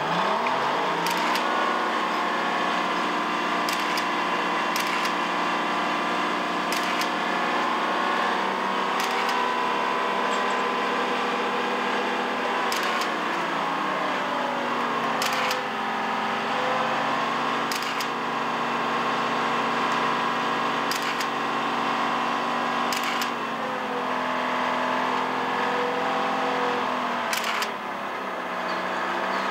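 A mobile crane's engine runs under load while it hoists a Titan II missile airframe out of its silo. Its pitch drops about halfway through and shifts again near the end as the engine speed changes.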